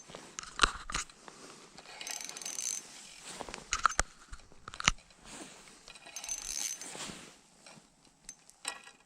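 Ice-fishing reel being worked while a fish resists: a few spells of mechanical whirring and ratcheting, with several sharp clicks.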